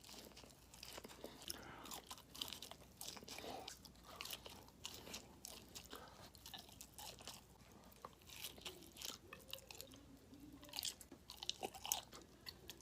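A person chewing crispy breaded chicken tenders close to the microphone, with many irregular crisp crunches.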